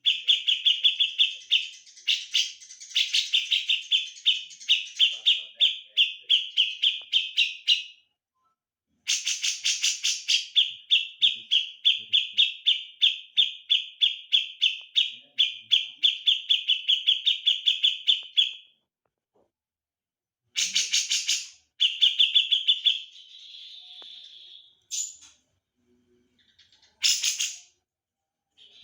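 Songbird calling in long runs of rapid, evenly repeated sharp chirps, several a second. The runs break briefly about a third of the way in and stop about two-thirds through, followed by a few short bursts of chirps.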